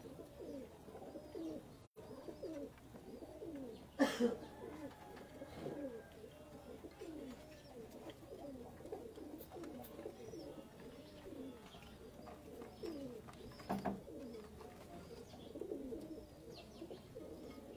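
Domestic breeder pigeons cooing, several birds' low rising-and-falling coos overlapping one after another. A sharp knock about four seconds in and another about ten seconds later.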